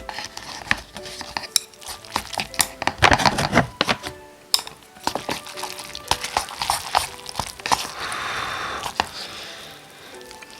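Utensils clicking and clinking against cup noodle containers and dishes, many separate light knocks, over steady background music. About eight seconds in there is a short hiss lasting about a second.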